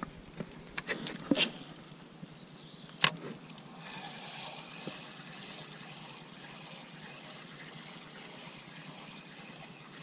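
Clicks of a spinning rod and reel being handled, with one sharp click about three seconds in, then a steady, faintly pulsing whir of the spinning reel winding line in.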